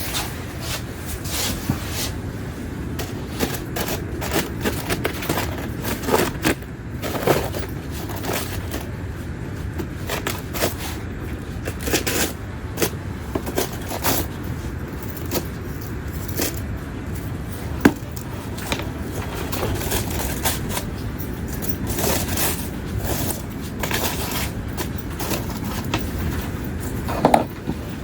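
Irregular scraping, crinkling and clicks of a stovetop foil-pan popcorn popper being cut and torn open with a knife, with a sharp click about two-thirds through.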